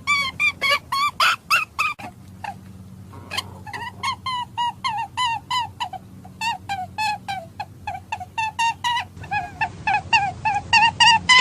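Rapid series of short, squeaky pitched calls from an animal, several a second, each note dipping in pitch, with a brief pause about two seconds in before the calls resume.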